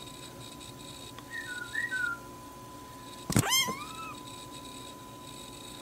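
Black kitten making tiny high-pitched meows: a pair of faint chirping squeaks about a second and a half in, then a louder, sharper meow about three seconds in.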